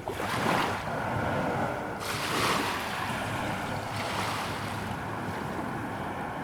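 Waves breaking on a shore, the surf surging in repeated swells about every two seconds.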